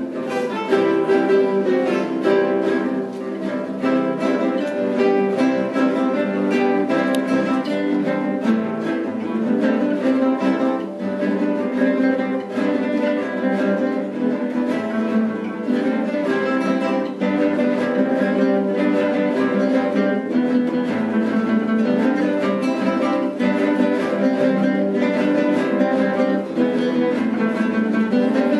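A classical guitar ensemble, many nylon-string guitars plucked together, playing a fast, lively South American folk tune.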